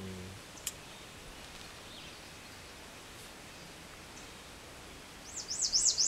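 A songbird singing a short, quick phrase of rapidly sweeping high notes near the end, over a quiet outdoor background with a few faint chirps earlier.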